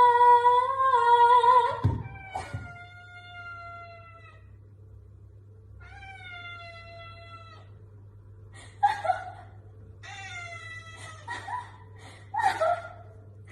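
A cat meowing over and over. It opens with a loud, long, drawn-out meow of about two seconds, followed by two more long, slightly falling meows, then several shorter meows near the end.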